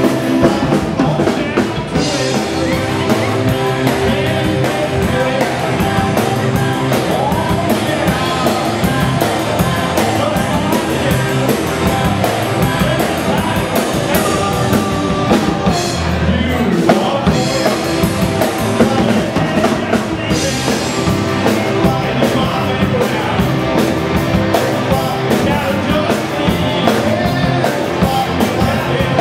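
Live rock-and-roll band playing: electric guitar, bass guitar and drum kit, with singing over them.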